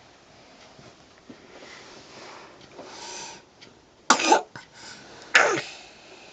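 Two loud coughs just over a second apart, after a few seconds of softer breathing sounds: an asthmatic cough.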